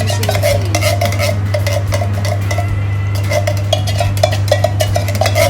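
Spoon scraping and knocking against cookware in quick irregular clicks, scraping out the last of the coconut milk, over a steady low hum.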